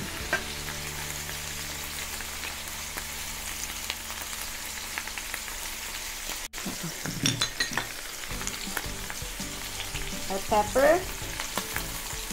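Beef pieces searing in a stainless steel pan in their own rendered fat, with no oil added: a steady sizzle with small crackles and pops.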